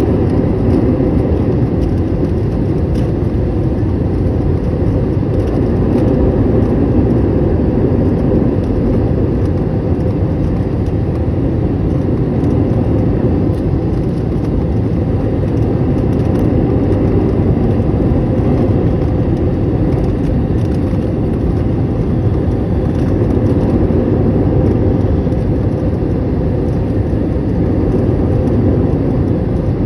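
Steady engine and airflow noise of a jet airliner, heard inside the cabin on approach to landing.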